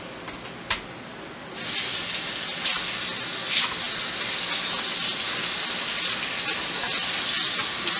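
A sharp click about a second in, then a kitchen faucet starts running about a second and a half in, its stream pouring steadily into the sink over hands rinsing strawberries.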